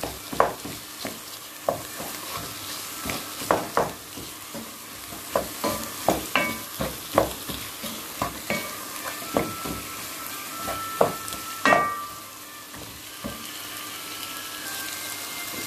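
Lamb pieces sizzling in hot oil with onion and garlic in a nonstick pot. A wooden spoon stirs through them with repeated short scrapes and taps against the pot. The strokes thin out after about twelve seconds, leaving mostly the steady sizzle.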